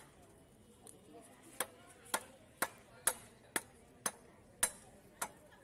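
Large fish-cutting knife striking a catla fish head in a steady run of sharp chopping strokes, about two a second, starting about a second and a half in.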